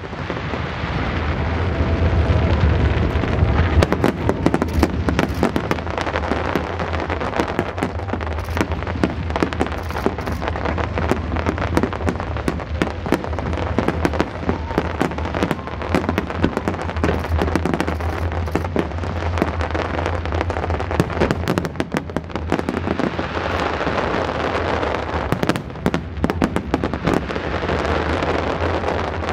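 Large fireworks display: many shells bursting in quick, continuous succession, a dense run of bangs and crackling pops over a steady low rumble.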